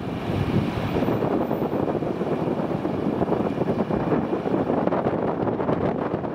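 Jet airliner engines, a steady, even rush of noise, mixed with wind buffeting the microphone.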